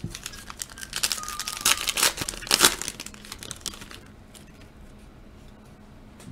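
Foil trading-card pack wrapper being torn open and crinkled by hand, a dense crackling for about four seconds that then dies down to a few faint ticks.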